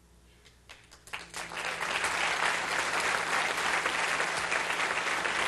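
Audience applauding: a few scattered claps about a second in, quickly building into steady applause.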